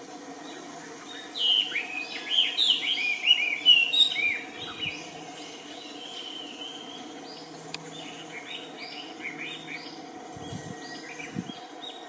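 Birdsong: a loud, quick run of chirping notes from about one to four and a half seconds in, then fainter scattered chirps, over a steady low background hum.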